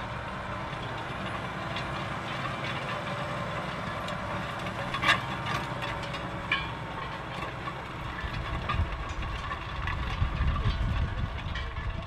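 Claas Axion tractor's diesel engine running steadily under load as it pulls a Horsch Joker RT disc cultivator through the soil. A sharp clank about five seconds in and another about a second and a half later, and the low rumble grows louder over the last few seconds.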